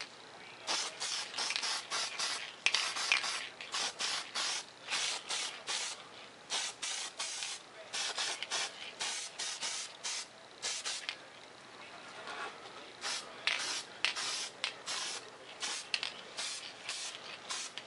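Aerosol spray-paint can spraying in many short hissing bursts, with a pause of about two seconds past the middle before the bursts resume.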